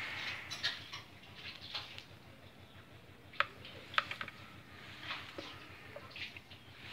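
Light handling noise: scattered clicks and taps from a plug and cord being seated in a power strip and a plastic hot glue gun being picked up, with two sharper clicks about three and a half and four seconds in.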